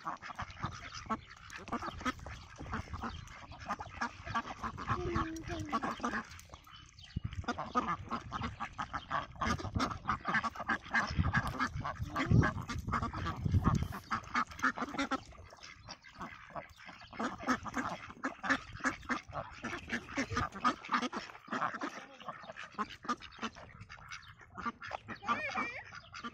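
A duck feeding on watermelon, its bill dabbling and chomping in rapid wet clicks and smacks, in spells with a few short breaks. A low rumble joins in about halfway through.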